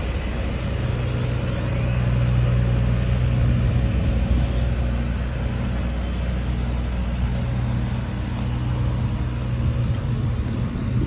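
Truck engine running loud and steady, a low drone that eases briefly about halfway through and then comes back.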